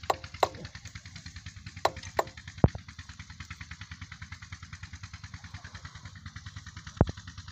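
An engine running steadily somewhere nearby, a quick regular chug of about eight beats a second, with a few sharp metallic clicks as small diesel fuel-injector parts are handled.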